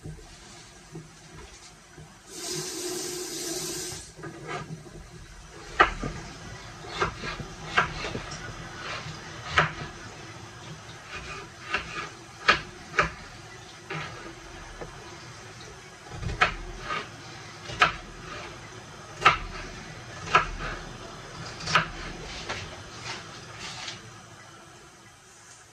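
A kitchen tap runs for a second or two, then a knife knocks sharply and irregularly on a cutting board, about once a second, as a carrot is cut.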